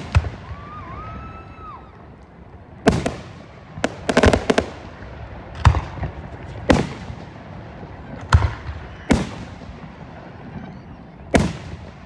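Aerial fireworks shells bursting overhead: a string of sharp bangs every second or two, each with a short echoing tail, and a quick run of cracks about four seconds in.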